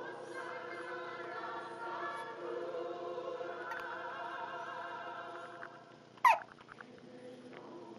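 A baby hiccups once, sharply, about six seconds in: a short squeak that falls in pitch. Before it, a long, steady tone made of several pitches together runs for about six seconds and then fades.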